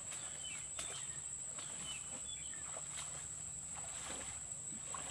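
Footsteps rustling and snapping through dry undergrowth and leaf litter, with a few short bird chirps and a steady high-pitched whine behind them.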